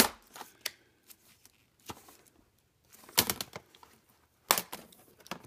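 HP laptop keyboard's retaining clips clicking as the keyboard is pushed and pried up out of the laptop's top case: several sharp clicks at irregular intervals. The clicking is the normal release of the keyboard's latches and does the keyboard no harm.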